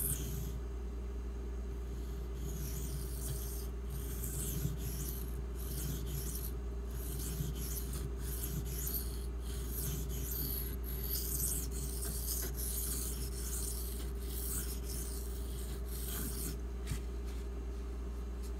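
A 1095 carbon-steel Barlow pocketknife blade being stroked back and forth across a Shapton Glass whetstone, a gritty rasping with each pass, repeated strokes broken by short pauses, as the edge bevel is ground.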